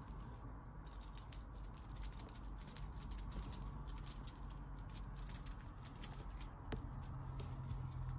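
Kittens' claws and paws scratching and rustling the organza lining of a crocheted basket as they play, a quick patter of small scratchy clicks that starts about a second in. A low steady hum runs underneath.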